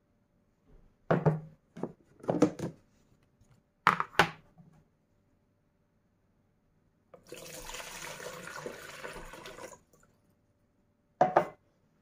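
Several sharp knocks and clatters, then about two and a half seconds of water being poured into a plastic water dispenser, and one knock near the end as the enamel pitcher is set down on the stone table.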